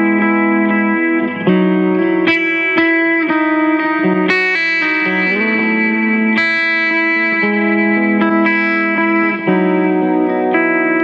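Clean electric guitar played back from a recording made with a Shure SM57 on the amp: picked notes and chords that ring on and change every second or so.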